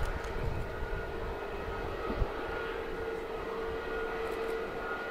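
Airbus A320neo jet airliner taxiing with its turbofan engines at idle: a steady whine over a low rumble.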